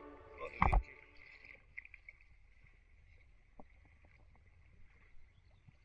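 Small waves sloshing and splashing against a camera held at the water's surface, with one loud knock or splash about three-quarters of a second in and scattered small clicks after it. The tail of background music fades out at the start.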